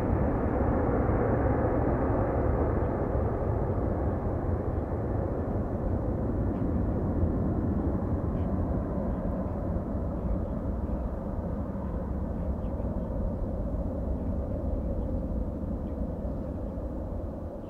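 Engine noise from a departing Boeing 767 airliner's twin jet engines, heard from the ground as it climbs away after takeoff. It is a steady low rumble that slowly fades as the aircraft recedes, with the higher part of the sound dying away first.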